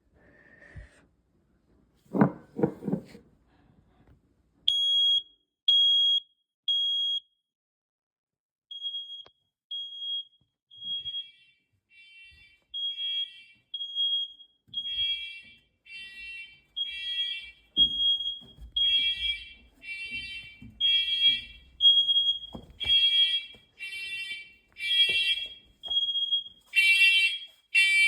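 Smoke alarm set off by canned test smoke, sounding high-pitched beeps, first as a group of three a few seconds in. Then other interconnected alarms in the system join with beeps at different pitches, so the alarm sound grows denser and louder toward the end. A few knocks come just before the first beeps.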